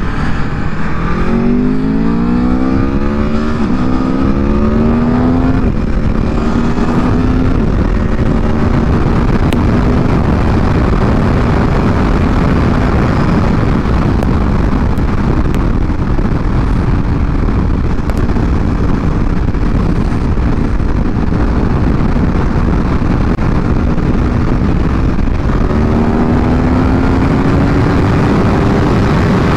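Aprilia Tuono V4 Factory's V4 engine accelerating, its pitch climbing in steps through the first few seconds, then holding a steady note at cruising speed, and climbing again near the end. A steady rush of wind noise runs under it.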